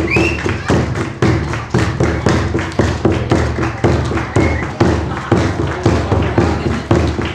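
A large drum beaten in a steady rhythm, about three strokes a second, with a low ringing tone between strokes.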